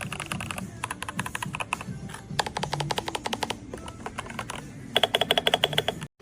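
Typing on an RK Royal Kludge mechanical keyboard: fast runs of key clicks, then a louder, quicker burst of repeated keystrokes about five seconds in that cuts off abruptly.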